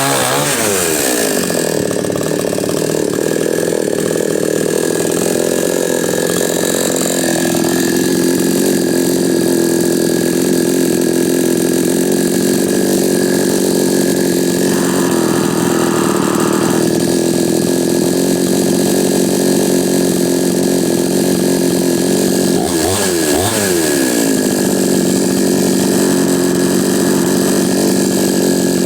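Chinese 45cc two-stroke chainsaw with freshly fitted piston rings, running. It drops from a high rev at the start and then runs steadily, with a quick rev up and back down about 23 seconds in.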